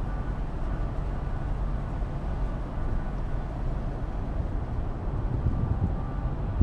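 Steady low rumble of the Jumbo Ferry Aoi under way, a continuous engine-and-hull drone without pauses.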